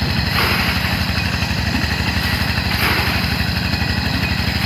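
A small engine running steadily at an even, fast pulse, with a couple of brief wet sloshes as mud is worked through a woven basket sieve.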